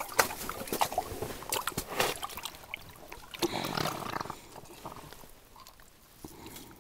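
Lake trout splashing and thrashing in the water of an ice-fishing hole as it is hauled up and out, with water pouring and dripping back into the hole. The splashing is busiest in the first few seconds and dies down near the end.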